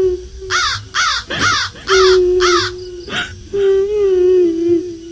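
A crow cawing five times in quick succession in the first three seconds, laid over a long, drawn-out wailing cry held on one pitch, the horror sound effect of a kuntilanak ghost crying.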